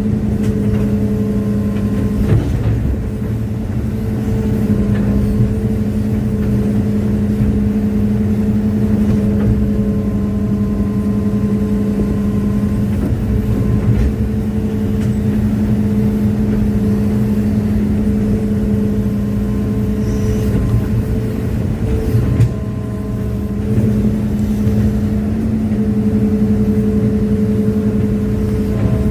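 Hitachi excavator's diesel engine running steadily under throttle while the machine works bogged down in soft mud. The engine note dips briefly twice, a couple of seconds in and again about two-thirds of the way through.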